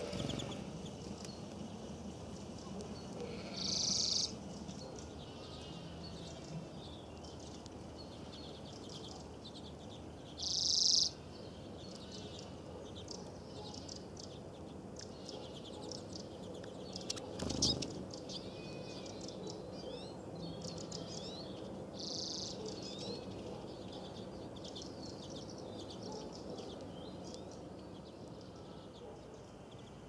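Small songbirds chirping and twittering throughout, with three short, loud bursts of high calls about 4, 11 and 22 seconds in. A single sharp knock a little past halfway.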